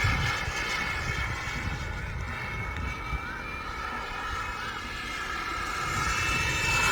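Model jet turbine of a radio-controlled Avanti jet whining steadily in flight over a low rumble, growing louder over the last couple of seconds as it comes closer.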